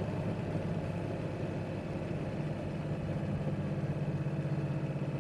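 Steady engine and road noise inside a car being driven on a winter highway, a low even drone with no change in speed.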